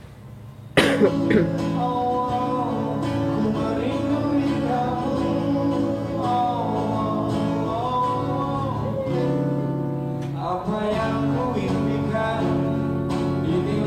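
A live acoustic pop song: a strummed acoustic guitar and a male singer. It cuts in suddenly about a second in and keeps playing.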